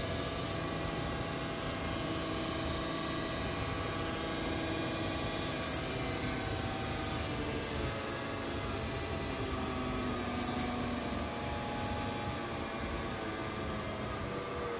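AC servo motor on a Mitsubishi MR-J3-350A servo drive running on the test bench: a steady whirring hum with faint whining tones. Its speed is being set by an analog voltage command.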